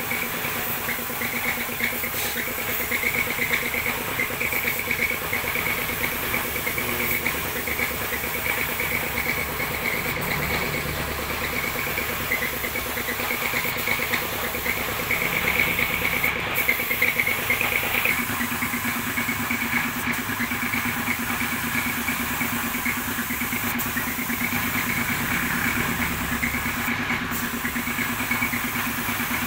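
Paint-spraying equipment running: a steady motor drone under the hiss of a spray gun. The drone drops to a lower pitch about two-thirds of the way through.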